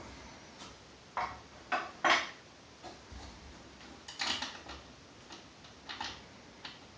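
Light metal clicks and clinks of a flat washer and hardware being handled and fitted onto a 5/16-inch bolt, in separate taps with the sharpest just after one and two seconds in and a cluster around four seconds.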